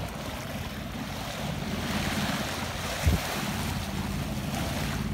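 Water rushing and splashing along a sailboat's hull at the bow wave, over the steady hum of the boat's inboard engine running. A brief thump about three seconds in.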